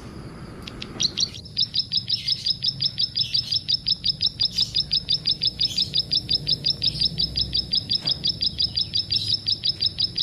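Bar-winged prinia (ciblek) calling: a fast, even series of high, sharp notes, about six a second, starting after a brief pause about a second and a half in and going on without a break.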